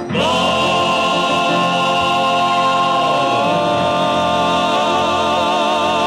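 Gospel vocal quartet holding the song's final sustained chord. About three seconds in, one voice slides down to a lower note and the held notes take on a wide vibrato.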